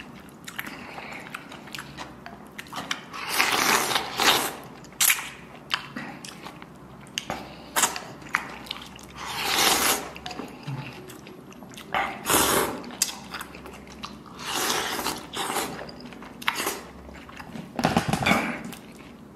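Slurping of noodles and soup, in about half a dozen long sucking breaths of a second or so each, with chewing and small mouth clicks between.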